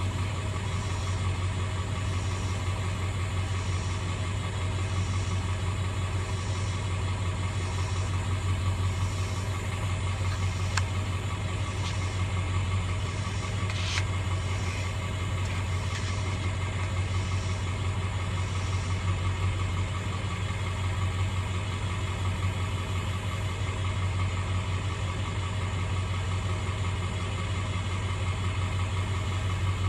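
Irrigation pump motor running steadily with a deep, even hum, plus a brief click midway.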